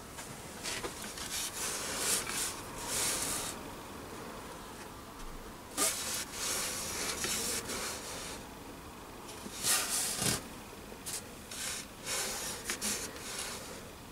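A heavy steel lathe chuck with a loose backplate on top, handled and turned round by hand on a plywood board: intermittent scraping and rubbing of metal on wood, in several short bouts with brief pauses.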